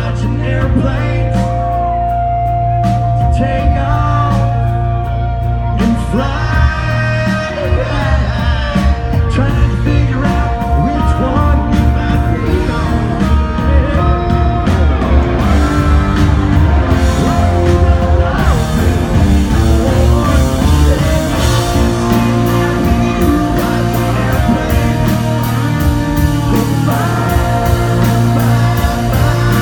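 Live country band playing, with a male lead singer over bass and drums.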